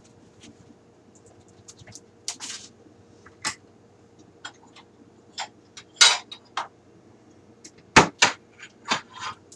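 Kitchen handling noise: a wooden cabinet door opened and knocked shut, and dishes clinking as they are taken out, heard as a string of short knocks and clinks. The loudest come about six seconds in and around eight seconds.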